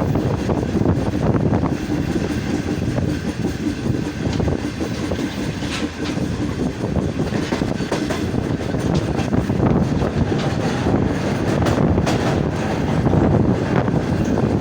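Passenger train running on the rails: a steady rumble with the rapid clatter of wheels over rail joints.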